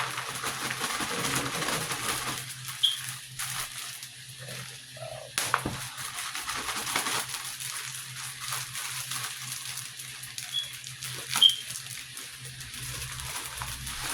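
Kitchen handling sounds: a few sharp clicks and knocks over a steady background hiss, the loudest knock a little past halfway through.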